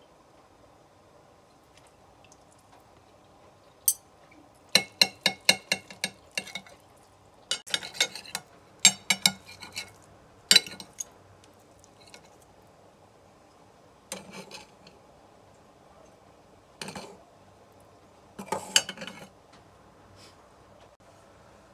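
Fork and knife clinking and scraping against a plate while cutting an omelette, in several bursts of quick sharp clicks with short pauses between.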